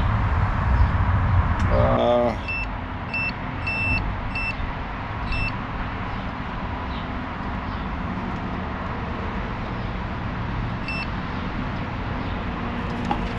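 Multimeter continuity beeper giving short high beeps: a quick run of about six beeps a few seconds in, then a single beep near the end, over a steady low rumble.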